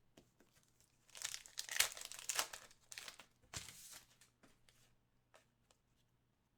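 Crinkling and tearing of a trading-card pack wrapper being handled and ripped open, lasting about three seconds from a second in, followed by a few faint taps.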